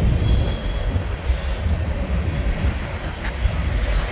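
Freight train of loaded grain hopper cars rolling past: a continuous heavy low rumble of steel wheels on rail, with a faint high wheel squeal during the first second.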